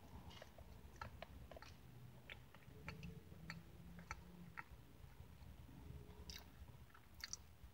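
Quiet close-up chewing of apple streusel pie, with scattered soft wet mouth clicks and smacks.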